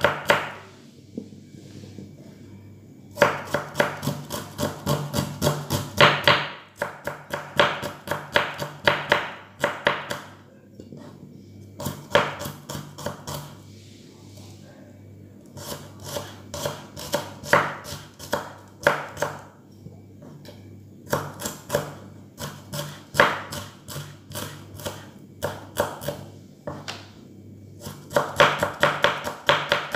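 Kitchen knife slicing shallots thinly on a wooden cutting board: runs of quick taps as the blade strikes the board, several a second, broken by short pauses.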